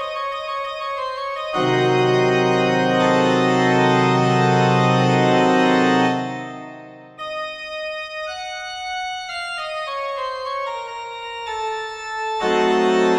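Background music on an organ-like keyboard, in sustained held chords. A loud chord comes in about a second and a half in and fades away around six seconds. After a brief gap, slower held notes follow, and another chord enters near the end.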